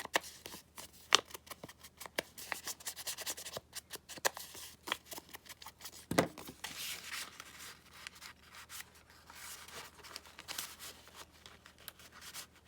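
Paper handling: rustling and rubbing of paper and sticker sheets, with scattered light clicks and taps, the sharpest about a second in, as stickers are peeled and pressed onto a paper envelope.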